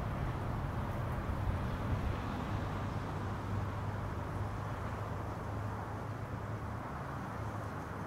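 Steady rumble of distant road traffic mixed with wind noise, an even low drone that eases slightly toward the end.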